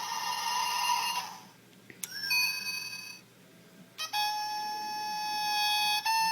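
Kamen Rider Hibiki Sound GaiaMemory toy playing its recorded sound effects through its small built-in speaker. It plays three separate electronic sounds: a hissy tone that stops about a second and a half in, a short pitched tone around the middle, and a long steady ringing tone near the end.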